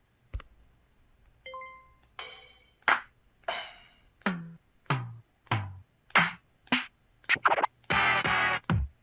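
Mobile phone system sound effects synthesized on a Yamaha YMU765 chip, played one after another through the phone: a click, a short chime, then a quick run of short drum-like hits and hiss-like noise bursts about every half second. Several hits end in a falling low tone, and a longer scratchy noise burst comes near the end.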